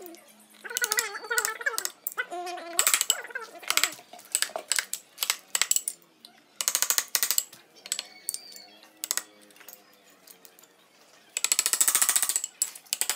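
Mallet rapidly tapping a wood-carving chisel into the wood, in runs of quick strikes broken by short pauses, with a longer fast run near the end.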